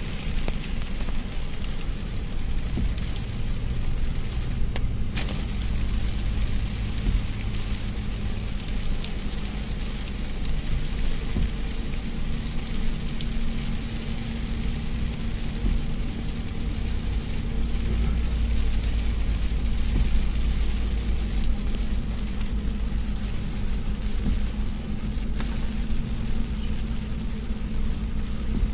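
Heavy rain hitting a car's roof and windshield, heard from inside the cabin, over a steady low rumble of the car driving on the wet road.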